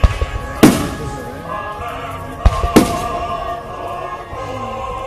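Aerial firework shells booming in the sky: two pairs of sharp bangs, one pair at the start and another about two and a half seconds in, over background music with held tones.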